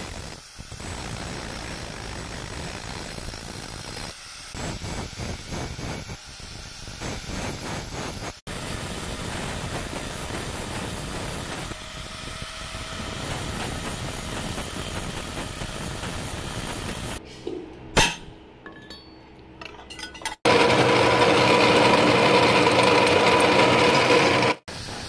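Angle grinder running and grinding a steel spear-shaft rod, heard in several abruptly cut clips. A sharp metallic clink comes about 18 seconds in. Near the end, the loudest part is a drill press motor running steadily while its bit drills into the steel rod.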